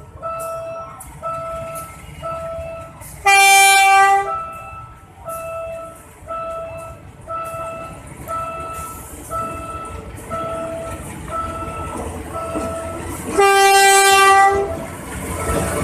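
Horn of a PNR diesel locomotive blowing two long blasts about ten seconds apart, over a level-crossing warning signal sounding about once a second. Near the end the rumble of the approaching train rises.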